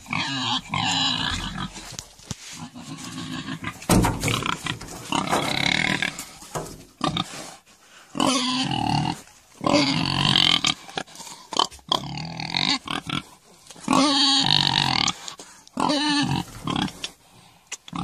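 Pigs squealing and grunting in a recorded sample, a string of short, pitch-bending calls of about a second each with brief pauses between them.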